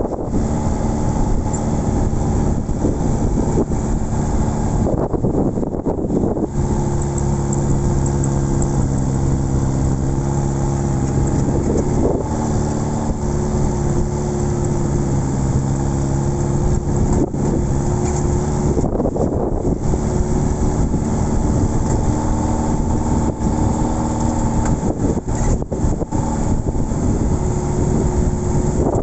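Jeep Willys engine running with the vehicle under way, its pitch holding for stretches and shifting several times as engine speed changes, under a constant rushing noise.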